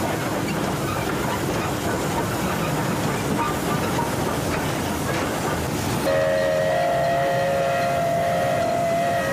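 Steam locomotive running with a steady rush of noise heard from the cab; about six seconds in its steam whistle is pulled and sounds a steady chord of several notes that holds to the end.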